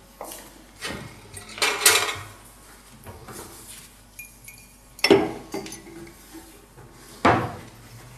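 Kitchen dishes and cutlery clattering: a handful of sharp clinks and knocks spread over several seconds, the loudest about two seconds and five seconds in.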